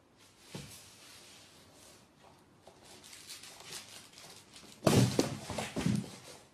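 A cat scrambling in a cardboard box: the cardboard scraping and rustling, then a loud burst of thumps about five seconds in.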